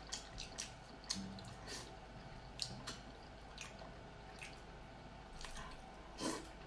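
Wet mouth sounds of eating soft braised pork belly: scattered short smacks and squishy chewing, with a louder smack near the end.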